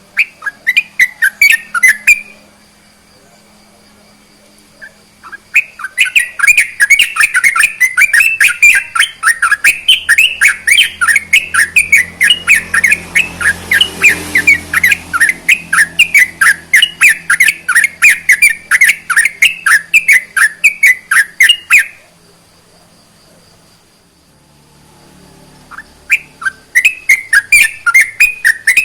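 Yellow-vented bulbul (trucukan) singing rapid runs of repeated notes, about five a second: a brief run at the start, a long unbroken run from about six seconds to about twenty-two, and another starting near the end.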